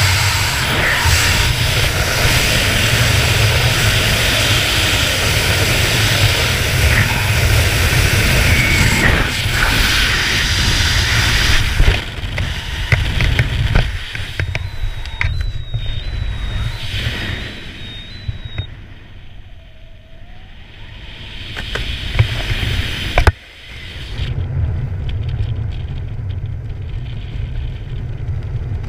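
Loud, steady rush of freefall wind over a skydiver's helmet-camera microphone, dropping off sharply about twelve seconds in as the parachute opens. A quieter, uneven rush of air follows under the canopy, with a short run of faint high beeps, a sharp click later on, and the wind building again near the end.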